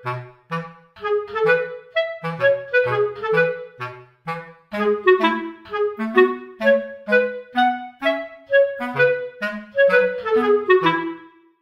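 Background music: an instrumental tune of quick, short notes over a bass line.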